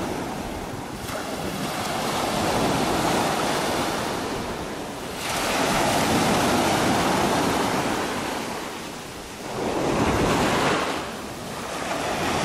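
Ocean surf breaking and washing up a sandy beach: a rushing noise that swells and falls back about three times as successive waves come in.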